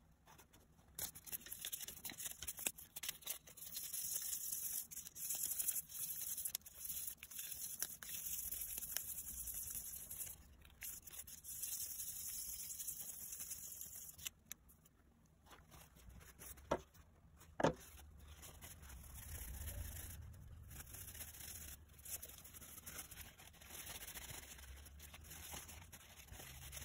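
A small brass screwdriver end cap being rubbed and polished by hand: a dry, scratchy rubbing that starts about a second in and runs steadily for a while. A little past halfway there are two brief light metallic rings, followed by softer rubbing.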